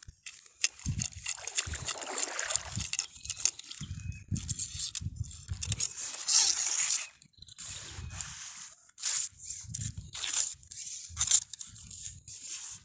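Shallow seawater sloshing and splashing in irregular bursts around a wading person, with clothing rustling.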